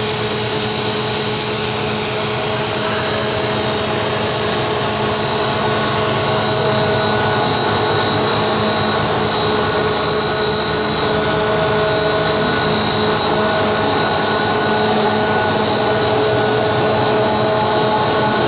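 Twin-screw fish feed extruder running: a steady machine drone with several steady tones and a high whine. The hiss above the whine drops away about seven seconds in.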